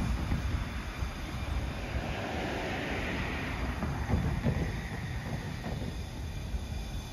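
Norfolk Southern diesel freight locomotives approaching, a steady low engine rumble.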